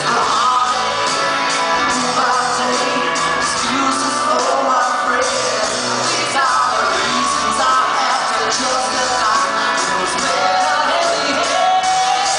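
Live rock band playing a song with a male lead singer, heard from the audience in a concert hall.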